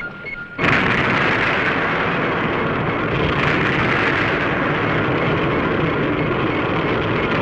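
A repeating electronic beep, about three a second, cut off about half a second in by a sudden loud blast that carries on as a steady, dense explosive roar: a special-effects eruption or explosion.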